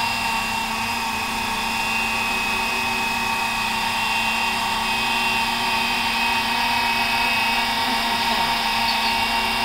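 Electric scale RC Huey UH-1 helicopter running its rotors on the ground, a steady whine that holds one pitch.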